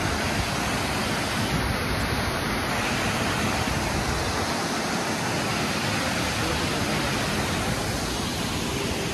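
Waterfall with water rushing steadily down the rocks into a pool, an even hiss that stays constant.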